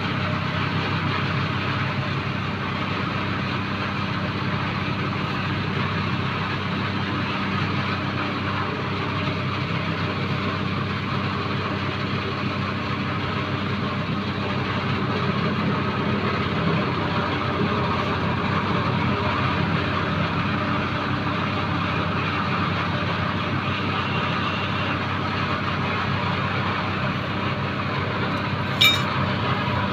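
A machine motor running steadily with a low hum throughout, and a single sharp click about a second before the end.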